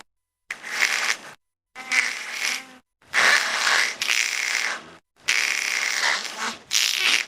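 A series of five short, harsh, rasping creature sound effects, each cut off abruptly with dead silence between them.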